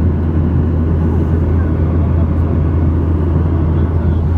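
Steady low rumble of cabin noise inside a Boeing 737-800 airliner: engine and airflow noise heard from the passenger seat, even and unbroken.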